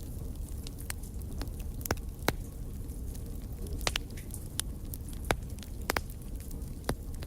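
Wood campfire crackling: irregular sharp pops and snaps over a steady low rumble of the burning fire, the loudest pop a little over two seconds in.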